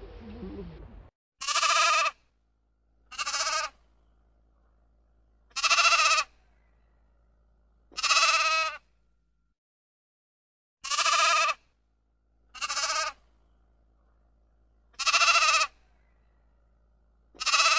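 Sheep bleating: eight separate bleats, each under a second, coming every two seconds or so. A low animal sound cuts off about a second in, before the first bleat.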